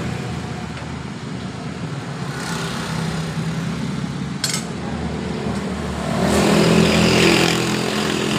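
Gas wok burner running with a steady low hum. There is a sharp clink about four seconds in, and from about six seconds a louder sizzle as food hits the hot oil in the wok.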